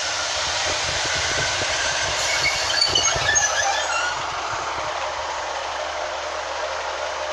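Class 156 diesel multiple unit slowing to a stop, with a rumble and knocking from the wheels and short high squeals about two to four seconds in. After that the rumbling eases into a steady running sound.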